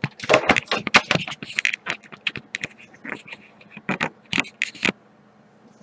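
Plastic parts of an upright vacuum cleaner being handled: a quick irregular run of clicks, knocks and scrapes that stops about five seconds in.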